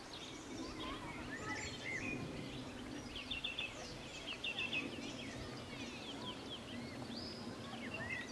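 Several small birds chirping and singing in short, overlapping calls, including a quick run of notes a little past three seconds in, over a faint steady low hum.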